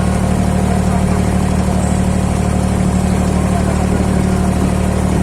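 Boat engine running steadily, a constant low hum with no change in speed.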